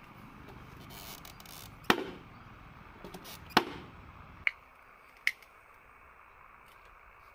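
Sharp taps and clicks of hard PVC model parts being handled by hand, four distinct knocks, the loudest about two seconds in, over a faint steady hiss that drops away about halfway through.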